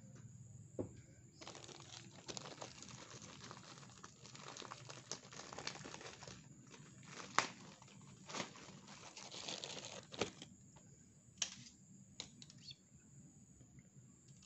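Plastic bag of crackers crinkling as it is opened and handled, a dense rustle with sharp crackles, thinning to scattered clicks for the last few seconds.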